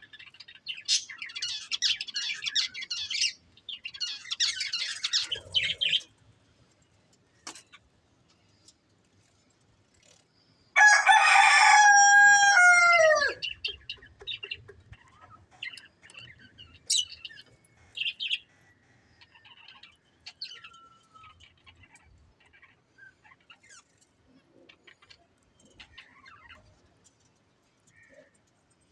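Budgerigars chattering and chirping in quick warbling bursts, then sparse single chirps. About eleven seconds in, a rooster crows once, loud and long, dropping in pitch at the end; it is the loudest sound here.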